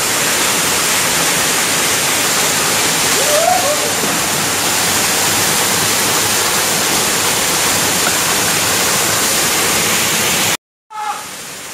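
Waterfall pouring into a rocky pool: a loud, steady rush of falling water. The sound cuts out abruptly for a moment near the end.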